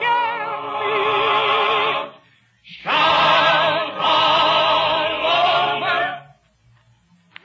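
Orchestra with operatic singing holding long vibrato notes, in the narrow, band-limited sound of a 1940s radio transcription. The music breaks off briefly about two seconds in and again near the end.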